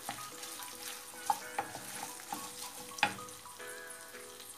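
Sliced sausage and tomato paste sizzling in a frying pan while a wooden spoon stirs through them, with a few sharp knocks of the spoon against the pan. Soft background music plays underneath.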